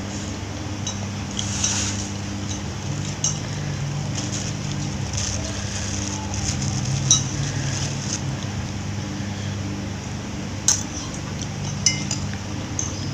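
Cutlery clinking against dishware during a meal: a few sharp clinks, the clearest about halfway through and near the end, with smaller ticks between. A steady low hum runs underneath.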